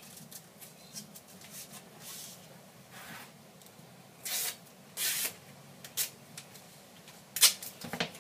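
A sheet of sandpaper crinkles and rustles as it is handled and pressed onto a rubber-faced trowel. It comes in several short bursts, the loudest about seven seconds in.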